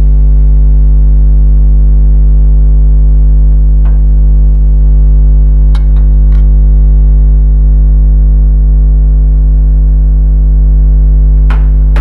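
Loud, steady low electrical hum with a buzzing edge. A few light clicks of a fork against china plates sound over it.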